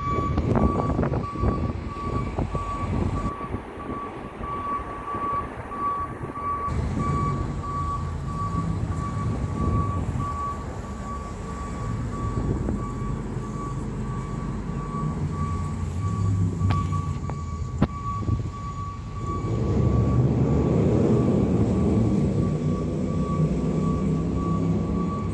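Fire truck reversing: its back-up alarm beeps over and over at one pitch while the engine runs underneath. The engine gets louder about 20 seconds in as the truck backs into its bay, and there is one sharp click shortly before that.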